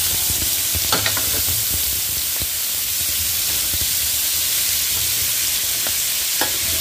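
Cubed beef and chopped onion frying in oil in a pan: a steady sizzle, with a couple of sharp clicks, about a second in and near the end.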